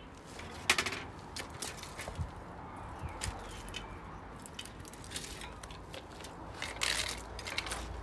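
Vintage Raleigh Courier bicycle being handled and turned upside down: scattered clanks and rattles from the frame, rear carrier and fittings, with a sharp knock about a second in and a cluster of rattling near the end as it is set down on its saddle and handlebars.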